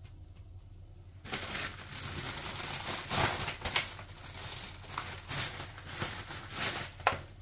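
Plastic bag of Yorkshire puddings being handled and opened: the packaging crinkles and rustles, with a few sharper crackles. It starts about a second in.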